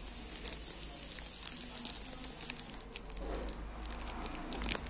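Clear plastic wrapper of a packet of erasers crinkling and crackling as it is handled, in scattered crackles with a louder cluster near the end, over a steady high hiss.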